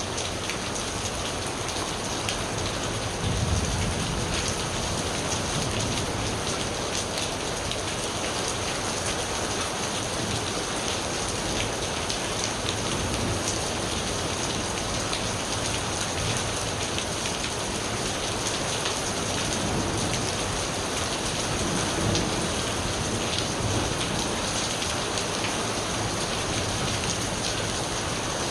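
Steady rain falling, with many close drops ticking, and low thunder rumbling about three seconds in and again about two-thirds of the way through.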